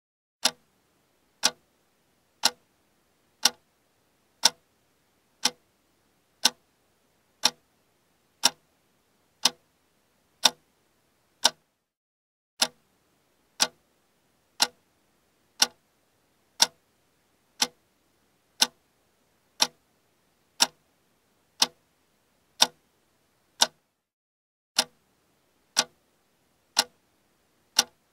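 Quiz countdown-timer sound effect: a clock ticking steadily, about once a second.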